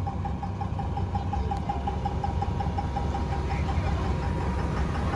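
Diesel pickup truck engine idling: a steady low rumble with a light, evenly spaced ticking running through it.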